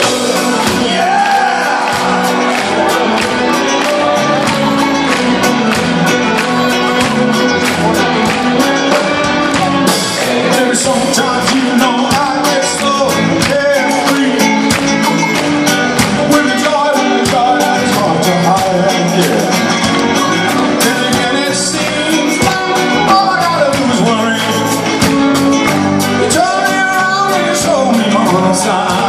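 Live rock band playing with a male lead vocal over electric guitars, organ and a steady drum beat, heard from within the audience.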